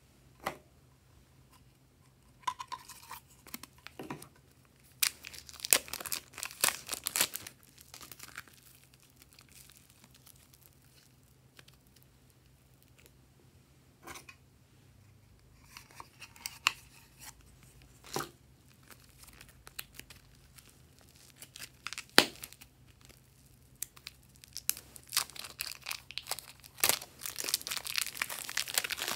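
Scattered short rustles and clicks of hands handling clay over a tray of slime. Near the end, a clear plastic bag crinkles continuously as pink clay is worked out of it.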